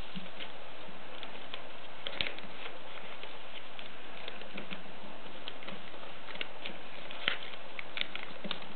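Paper being folded and creased by hand: scattered small crinkles and ticks, with a sharper click about seven seconds in, over a steady hiss.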